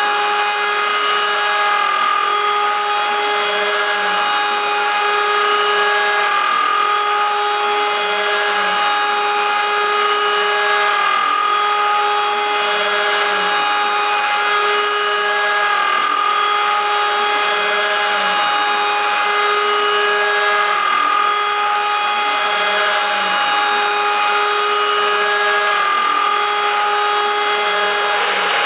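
A CNC router spindle whines steadily as its end mill cuts 6061 aluminium on an adaptive toolpath, over a dense high hiss of cutting. A faint lower rise and fall repeats about once a second as the cutter circles through the pocket.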